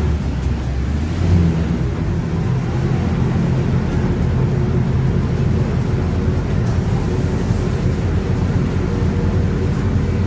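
Mercedes-Benz OF-1721 BlueTec5 city bus under way, its diesel engine and drivetrain running steadily with the differential growling. The low hum shifts and briefly rises about a second in.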